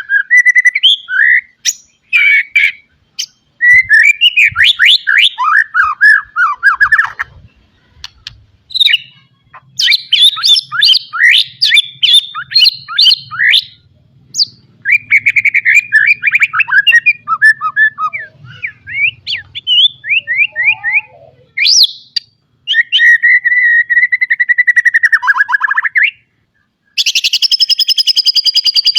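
White-rumped shama singing a loud, varied full song packed with mimicked phrases: runs of fast whistles and trills, a few seconds each with short breaks, ending in a harsher buzzing phrase near the end.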